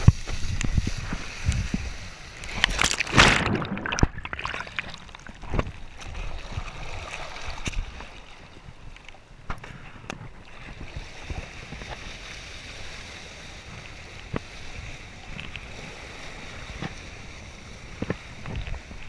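Kiteboard skimming over choppy water: splashing and spray against the board with wind buffeting the microphone. The loudest splashing comes in the first few seconds, then it settles to a softer steady rush of water.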